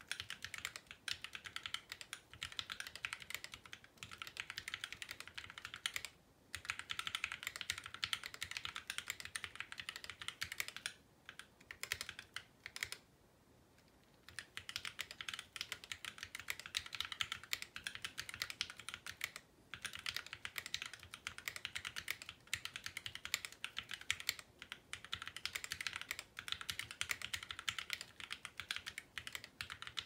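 Continuous typing on a mechanical keyboard: a fast, dense patter of key clicks, broken by short pauses every few seconds.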